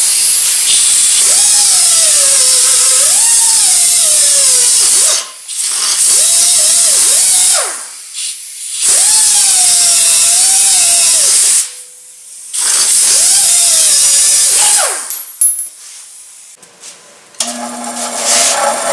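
Handheld cut-off wheel spinning at high speed and cutting a steel rod clamped in a vise, its whine sagging and wavering as it bites, in four runs with short pauses between. A few sharp knocks follow, and near the end a bench grinder starts running.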